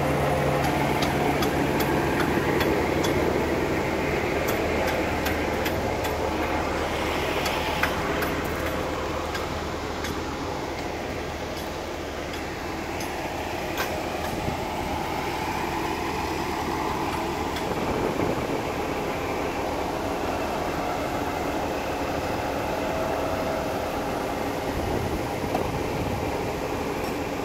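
Heavy diesel vehicle engine idling steadily, a continuous low hum.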